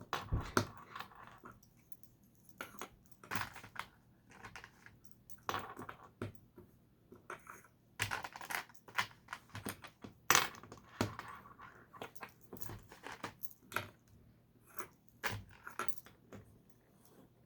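Small plastic LEGO pieces clicking and rattling as they are handled and pressed together, in irregular clusters of sharp clicks with short rustles between them.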